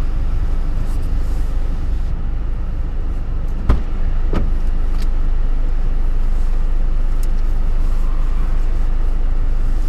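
Car idling, a steady low rumble heard from inside the cabin, with one solid thump a little over a third of the way in and a few light clicks as the passenger door is opened and someone gets in.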